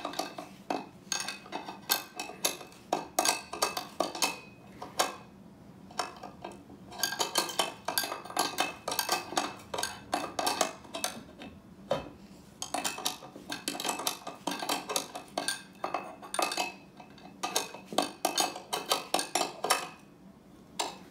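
Metal clicks and clinks of a wrench turning the nut on an A-pillar light mounting bracket as it is tightened. The clicks come in quick runs with short pauses between them and stop about a second before the end.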